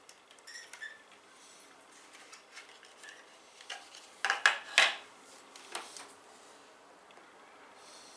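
Hard clicks and clacks of computer parts being handled and fitted. There are a few light ticks about half a second in, a cluster of sharp, loud clacks about four and a half to five seconds in, and one more clack near six seconds.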